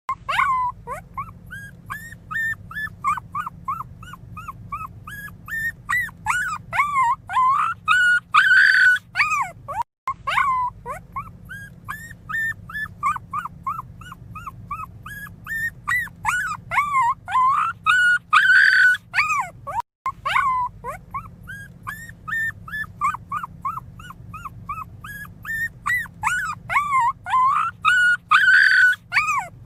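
Newborn miniature pinscher puppy crying loudly: a rapid run of short, high whimpers and squeaks that builds to a louder squeal about every ten seconds, over a steady low hum.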